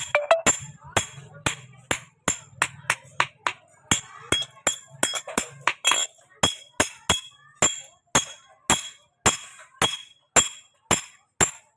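Blacksmith's hammer striking an axe head on an anvil in a steady rhythm of about three blows a second, each blow ringing sharply.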